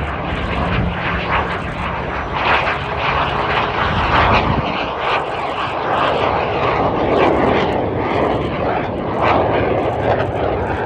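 Aermacchi MB-339 jet trainer's engine roaring through a low aerobatic display, its pitch sweeping down about six to eight seconds in as it passes.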